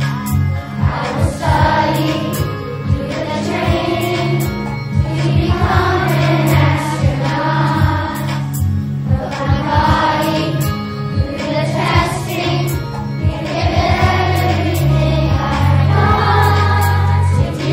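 Children's choir of elementary-school singers singing in unison over an instrumental backing track with a steady bass and beat.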